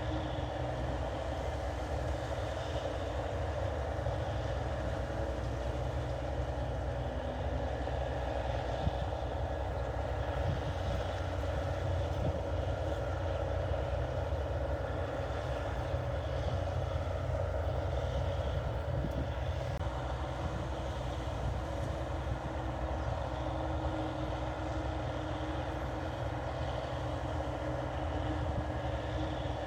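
NH 8080 rice combine harvester running steadily under load as it cuts paddy.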